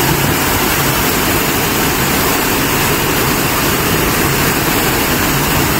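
Waterfall plunging into a rock pool: a loud, steady rush of falling water.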